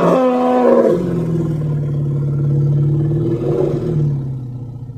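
Recreated Columbian mammoth call: it opens higher-pitched, drops at about one second into a long, low, steady rumbling call, and fades out near the end.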